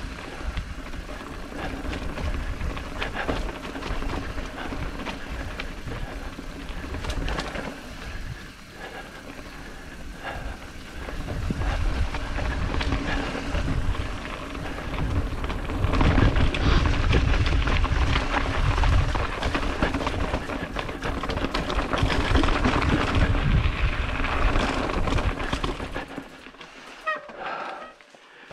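Wind rumbling on the microphone while moving along a trail, with many scattered knocks and rattles. The rumble swells about halfway through and drops away sharply near the end.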